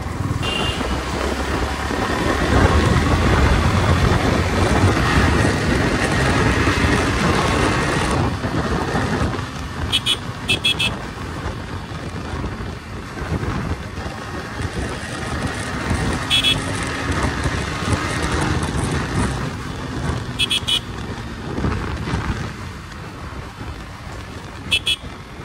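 Riding noise from a Yamaha sport motorcycle in city traffic: wind rushing over the microphone over the bike's engine, louder in the first third. Short vehicle horn toots sound several times.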